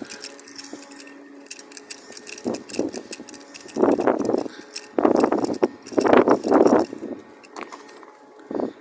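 Metal clicks and rattles of a sliding bar clamp being handled and screwed back out to reset it, with three louder scraping bursts in the middle.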